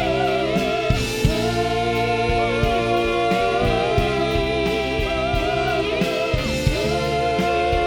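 Live worship band music: a voice holding long, wavering notes over sustained instrumental chords.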